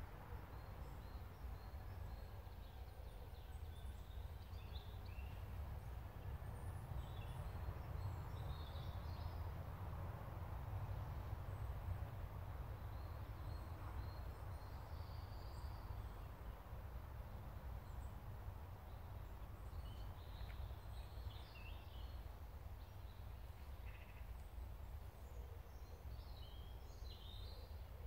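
Faint woodland ambience: a steady low background rumble with small birds chirping now and then, in short scattered bursts of high calls.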